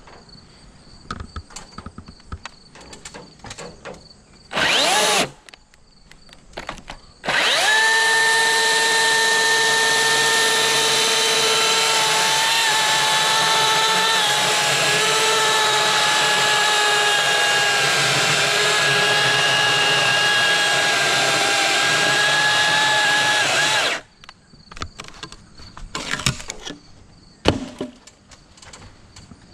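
An electric power tool's motor gives a short burst about five seconds in, then runs steadily with a high whine for about sixteen seconds, its pitch dipping slightly now and then as if under load, before cutting off.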